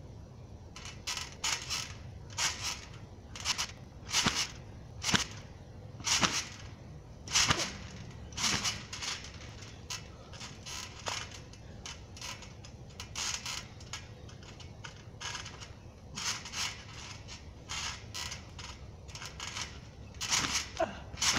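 Trampoline springs creaking and squeaking with each bounce, a burst about every half second to second. The harder landings add a thud. The bouncing goes softer and sparser for several seconds midway, then picks up again.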